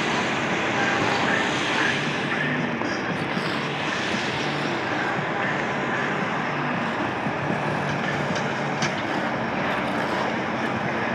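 Ice resurfacing machine's engine running steadily, a low hum under a constant hiss.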